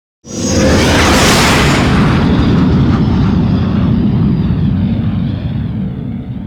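Star Wars Y-wing bomber flyby sound effect: the engine noise bursts in suddenly about a quarter second in, with a bright hiss over the first two seconds, then settles into a deep rumble that slowly fades away.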